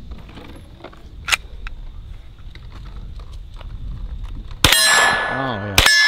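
Two shots about a second apart near the end from a blowback pistol-caliber carbine, fired without its suppressor on 115-grain ammunition, and cycling. Each shot is followed by a ringing metallic clang from a steel target being hit.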